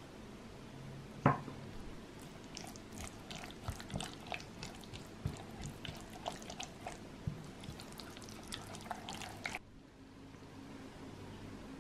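Silicone spatula stirring a thick, creamy yogurt-and-cheese sauce in a glass bowl: irregular wet squelches and small clicks against the glass, after one sharp knock about a second in. The stirring stops abruptly near the end.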